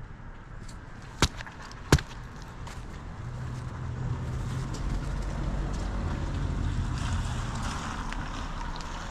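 Strong wind gusting over the microphone, a low rumble that swells and grows louder about three seconds in. Two sharp clicks come about a second apart early on.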